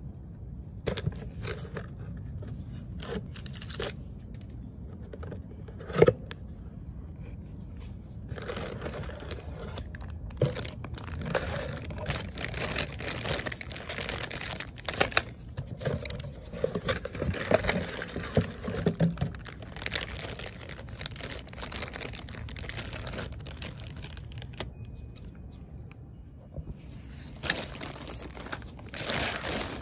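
Clear plastic bags crinkling and rustling as the parts of a dent repair kit are handled and unpacked, in irregular spells. Scattered light knocks, with one sharp knock about six seconds in.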